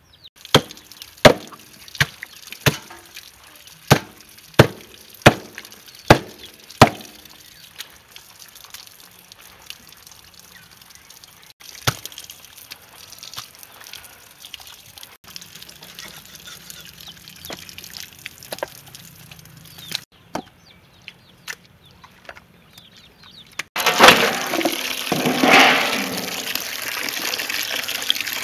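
Heavy cleaver chopping through a pork leg on a thick wooden chopping block: about nine sharp strikes in the first seven seconds, then quieter scraping and handling. Near the end, loud splashing as the chopped pork is washed by hand in a metal basin of water.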